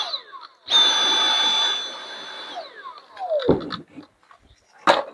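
Dyson V8 cordless vacuum's handheld motor unit run in short trigger presses, with a high whine. At the start it winds down with a falling whine. It starts again a little under a second in, runs steadily for about two seconds, then winds down again with a falling whine.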